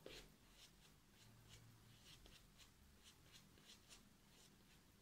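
Faint rhythmic rubbing of fingers spreading shaving-soap lather over a stubbled face, about two strokes a second.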